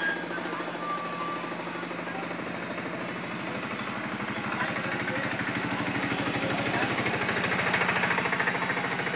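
A motor vehicle engine running steadily with a rapid, even pulsing, getting somewhat louder about five seconds in.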